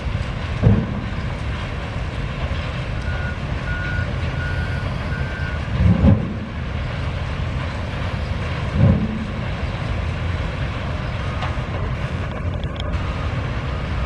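Heavy diesel machinery running steadily, led by the engine of a Liebherr 944 wheeled log handler as it moves a grapple load of logs, swelling louder briefly three times. A vehicle's reversing alarm beeps several times about three to five seconds in.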